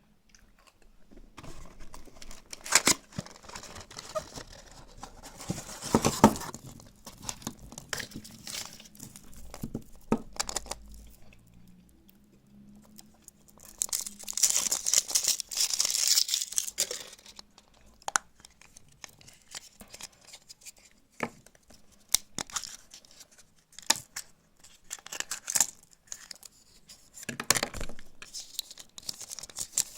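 Kinder Surprise egg's foil wrapper being torn and crinkled by hand, in fits and starts with sharp clicks scattered through, busiest around the middle.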